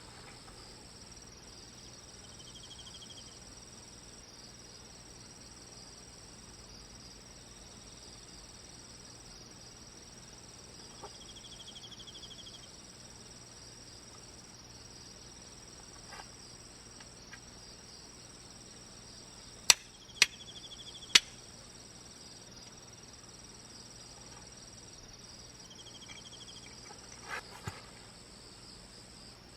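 Steady high chirring of crickets and other insects, with a short buzzy trill that recurs every several seconds. Three sharp cracks come in quick succession about two-thirds of the way through, and a couple of softer knocks near the end.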